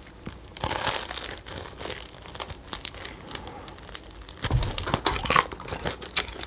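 Food packaging crinkling and rustling as it is handled, with scattered light clicks and knocks.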